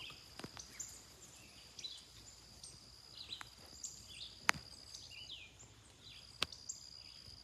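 Outdoor rural ambience: birds chirping on and off over a steady high insect drone. A few sharp clicks stand out, the loudest about four and a half seconds in.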